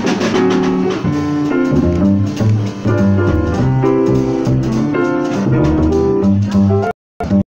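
Live jazz with a plucked upright bass to the fore and piano chords. About seven seconds in, the sound cuts out abruptly to silence.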